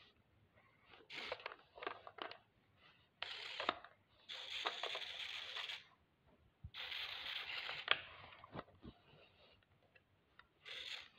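Small electric motors of a toy remote-control stunt car whirring in several short bursts as the controller's sticks are pushed and released.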